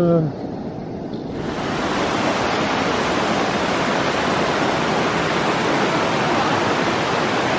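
Rushing water of a jungle stream or waterfall, a loud steady hiss that sets in about a second and a half in, after a brief spoken "yes".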